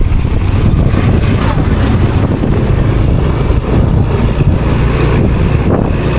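Motorcycle engine running steadily while riding along a road, with a steady rush of wind noise over it.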